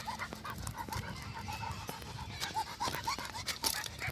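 A Rottweiler panting hard and fast, about four pants a second, over a low rumble.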